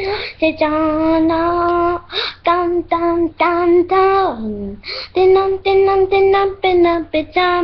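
A boy singing a wordless tune on held notes, mimicking a TV show's closing-credits theme; one note slides down about four seconds in.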